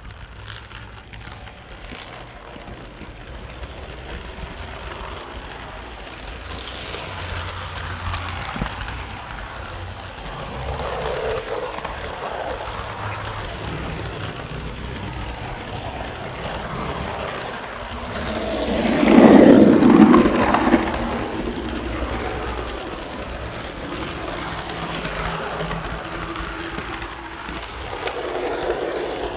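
Model train running on its track: a steady rumble and rattle of the wheels and motor, heard from a car riding right behind the locomotive. About two-thirds of the way through it swells much louder for a couple of seconds, then settles back.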